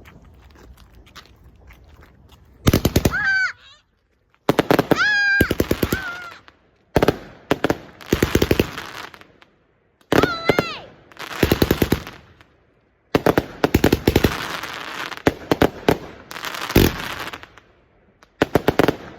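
Multi-shot aerial firework going off: volley after volley of rapid crackling bangs, each a quick rattle about a second long, separated by short pauses.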